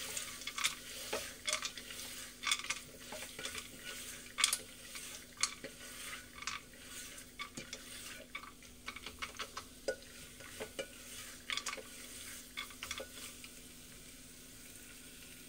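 Macaroni being stir-fried in spice masala in an aluminium pressure cooker: a spatula scrapes and knocks irregularly against the pot over a faint sizzle. The stirring thins out near the end.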